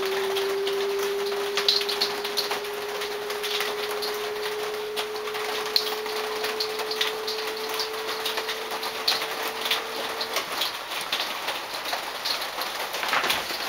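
Electric lift motor of a converted Adec dental chair whining steadily as it raises a motorcycle, its pitch creeping slightly upward, then cutting off suddenly about ten seconds in as the lift stops. A crackling patter of faint ticks sits behind it.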